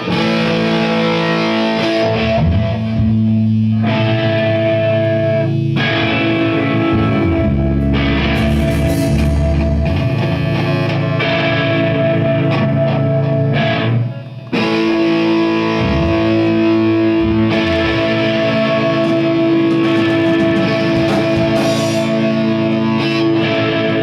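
A rock band playing loud instrumental music on electric guitars with distortion and bass, with a brief break about fourteen seconds in.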